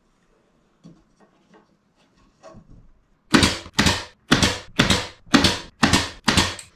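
Pneumatic brad nailer firing seven times in quick succession, about two shots a second, driving brads through a thin wooden door-stop strip into a frame. It starts a little after three seconds in, after some faint tapping and handling of the wood.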